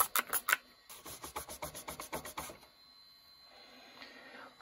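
Finger-pump spray bottle misting cleaner onto a plastic CD-ROM drive tray in a few quick sprays. About a second in, a quieter run of rapid rubbing strokes follows as the tray is wiped, lasting about a second and a half.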